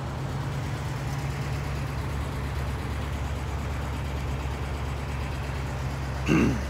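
A vehicle engine idling, a steady low rumble, with a brief louder sound near the end.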